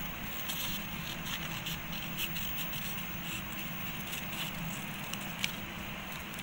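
Steel scissors snipping through folded coloured paper in a run of short, crisp cuts, with one sharper snip near the end.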